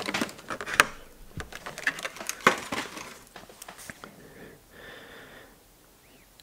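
Handling noise from a vinyl Funko Pop bobblehead figure being turned on a tabletop: a few light knocks and taps in the first four seconds, then only faint rustling.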